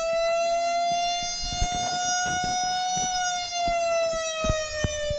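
Recorded fire truck siren played back, a long steady wail that rises slightly in pitch and eases back down near the end, with a few faint clicks underneath.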